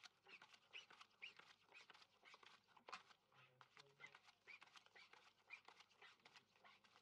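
Faint, quick clicks and slides of playing cards being drawn and laid on a blackjack table, one after another.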